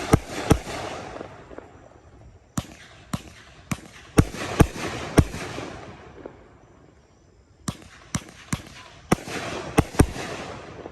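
A 25-shot consumer firework cake (Sunwing Make It Rain, 500 g) firing willow shells: sharp bangs in three quick volleys, with a short lull between the second and third. Each volley is followed by a fading hiss.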